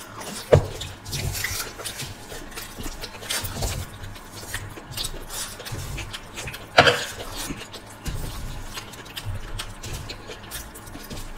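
Close-miked eating sounds of two people chewing spicy macaroni, eaten from a spoon and by hand off aluminium foil, with small wet mouth sounds and clicks throughout. Two louder sharp sounds stand out, about half a second in and near seven seconds.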